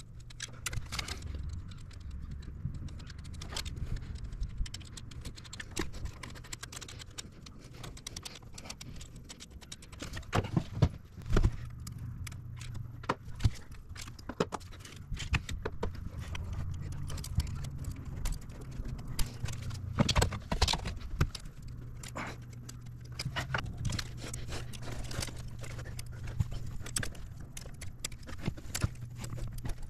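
Irregular metallic clicks and clinks of a quarter-inch ratchet and socket working glow plugs loose in a 7.3 Power Stroke diesel's cylinder head, over a steady low hum.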